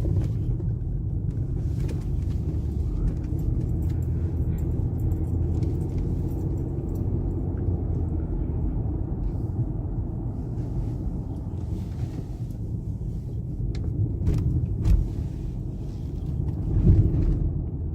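Car being driven, heard from inside the cabin: a steady low rumble of engine and road noise. There are a few light clicks and rattles, and a couple of low bumps near the end.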